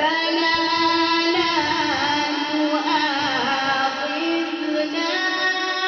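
Quran recitation: a single voice chanting in long, melodic held notes that waver and bend in pitch.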